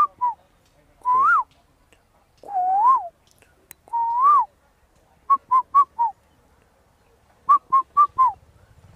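A man whistling bird calls with his mouth: three single longer whistles that rise and fall in pitch, and then two runs of four or five quick short notes.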